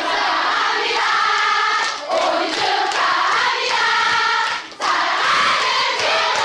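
A crowd of fans singing together in unison, holding long notes in phrases about a second long with short breaks between them.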